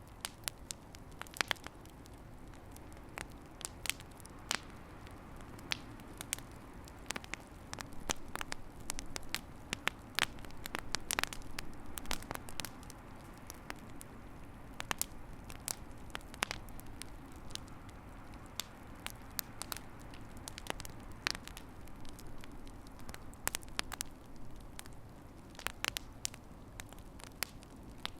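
A fireplace fire crackling, with frequent sharp pops and snaps over a steady low rumble of the flames. It is busiest and loudest about a third of the way in.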